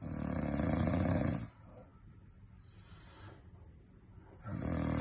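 A sleeping man snoring loudly, like a wild animal: one long snore from the start lasting about a second and a half, quieter breathing, then the next snore beginning near the end.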